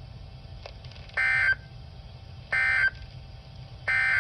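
EAS/SAME digital data bursts from a weather radio alert: three short warbling bursts of data tones, about a second and a half apart. Their shortness marks them as the end-of-message (NNNN) code that closes the warning.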